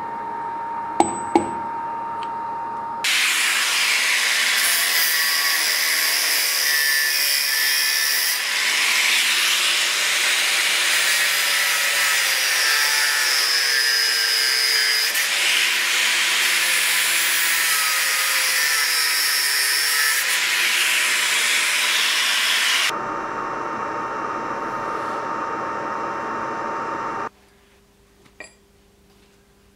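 Angle grinder's abrasive disc cutting through metal clamped in a vise, a loud whining grind whose pitch wavers as the disc bites, lasting about twenty seconds. Before it come a couple of sharp taps, and near the end the sound drops away, leaving one small metallic click.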